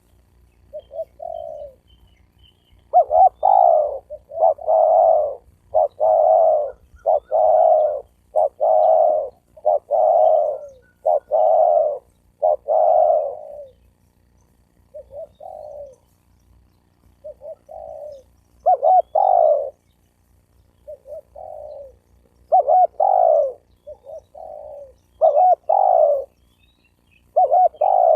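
Spotted dove cooing: a long run of low coos about a second apart, then, after a pause, shorter broken groups of coos.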